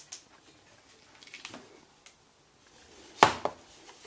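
A small plastic alarm clock handled on a wooden desk: faint rubbing and light clicks, then a sharp knock of plastic on wood about three seconds in, with a smaller second knock right after.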